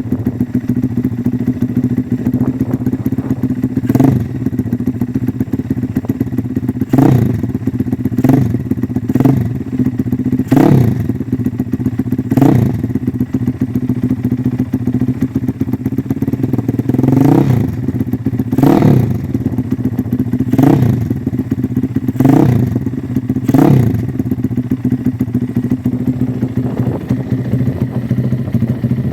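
Engine idling loudly through a newly fitted muffler, blipped with short throttle revs about eleven times, each rising and dropping back to idle within a second.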